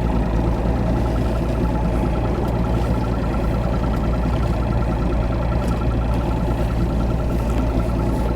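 An engine running steadily at an even speed, with a fast, even pulse.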